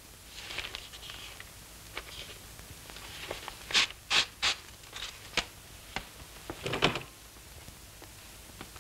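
Magazine paper rustling as pages are handled and torn out, with several short, sharp rips in the middle.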